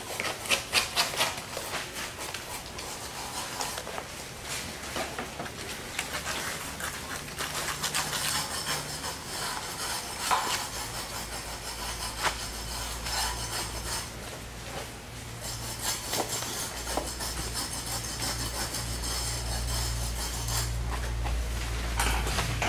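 Clinking, knocking and scraping of a steel stud frame and of wet premix being packed by hand around its rails, busiest in the first couple of seconds. A low steady hum comes in about seven seconds in and grows stronger from about ten seconds.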